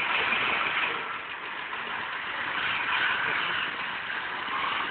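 Vehicle engines running as a van and a truck drive over a railway level crossing, heard as a steady, rough, hissy noise through a cellphone microphone.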